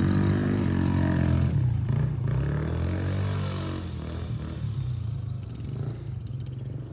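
ATV engine running close by, its pitch rising and falling with the throttle, then fading as the quad rides off into the distance.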